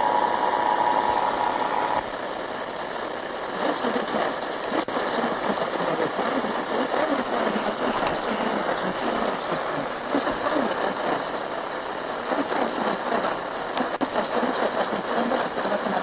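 The two-tone Emergency Alert System attention signal sounds steadily and cuts off about two seconds in. Heavy radio static follows, with a faint, unintelligible announcer's voice buried in it from about three and a half seconds in.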